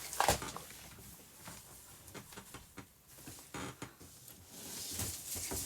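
A large, heavy gift box being handled: a knock about a quarter second in, then scattered light taps and clicks, with rustling of the wrapping growing near the end.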